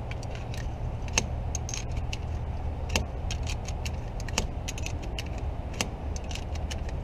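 9mm cartridges being pressed one at a time into a CZ TS2 pistol magazine: a sharper click about every second and a half, with light metallic jingling of loose rounds between, over a steady low hum.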